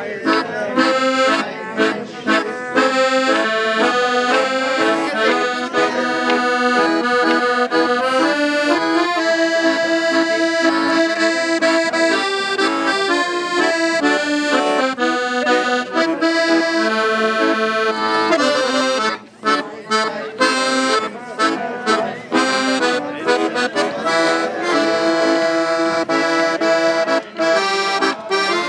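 Instrumental folk music played live without singing: a melody over held chords, with a brief pause about two-thirds of the way through.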